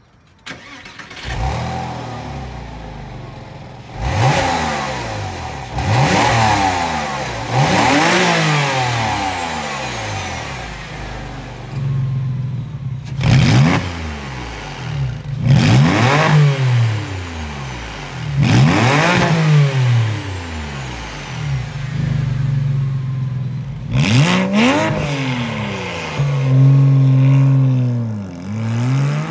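Porsche 986 Boxster flat-six engine revved in a series of throttle blips through a Soul valved muffler bypass exhaust, the valves closed at first and open from about thirteen seconds in. About twenty-four seconds in, the car pulls away and accelerates with the valves open.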